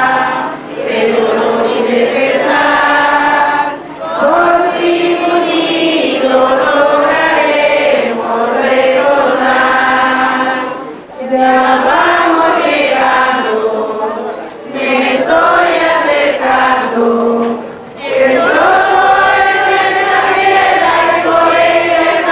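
A group of voices singing a song in Spanish, in phrases of held notes broken by short pauses for breath.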